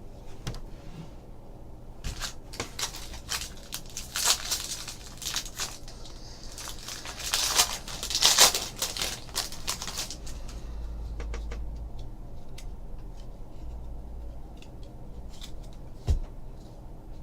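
A foil trading card pack is torn open and crinkled, with bursts of rustling about four seconds in and again around eight seconds in. Cards are handled with small clicks and taps, and there is one sharp tap near the end.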